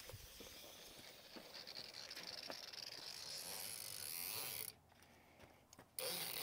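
Steel tape measure blade being drawn out, a faint steady rasping hiss that builds slowly and stops suddenly about three-quarters of the way in; a short louder rustle follows near the end.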